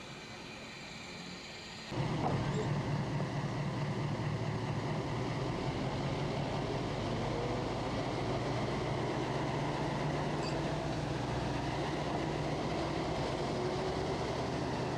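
Diesel shunting locomotive's engine running steadily, heard from on board as the locomotive moves slowly. The drone cuts in suddenly about two seconds in, after a quieter stretch.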